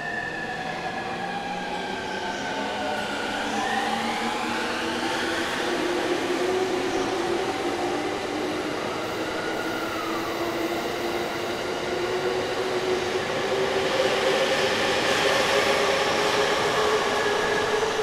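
E257 series electric train pulling away from the platform: its inverter-driven traction motors whine in several tones that rise in pitch as it accelerates, growing louder as the cars pass.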